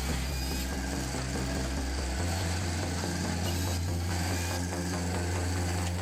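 A firewood processor running steadily, its engine giving a low hum that steps up in pitch about two seconds in.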